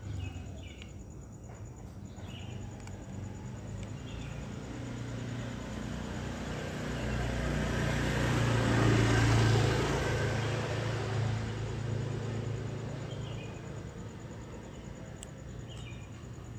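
A vehicle passing by: a low engine hum and road noise that swell over several seconds, peak about nine seconds in, then fade away.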